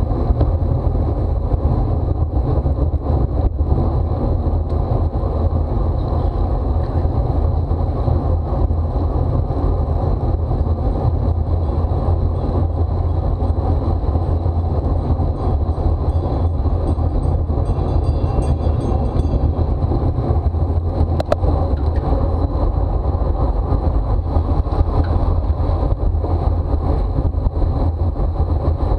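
Steady rumbling wind and road noise on a bicycle rider's camera microphone during a criterium race, with one sharp click about two-thirds of the way through.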